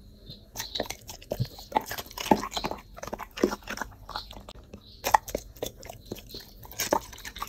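A yellow Labrador retriever chewing and crunching food, a quick run of bites with a short lull about four seconds in.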